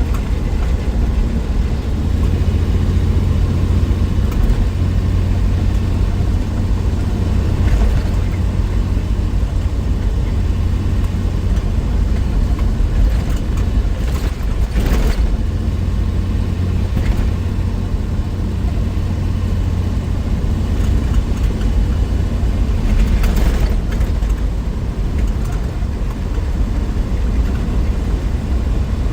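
1963 Willys Wagon's 230 Tornado overhead-cam straight-six running steadily at road speed, with road noise. Two brief rushes of noise come through, about halfway and again about three quarters of the way through.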